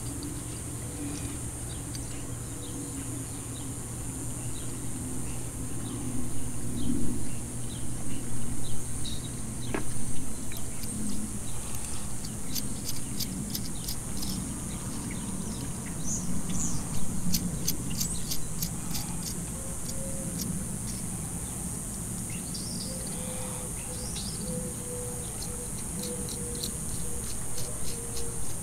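Light ticks and clinks of small metal parts, a bolt and nut being worked by hand on a steel light-mount bracket, over a steady high hiss of outdoor background. Runs of quick ticks come in the middle of the stretch.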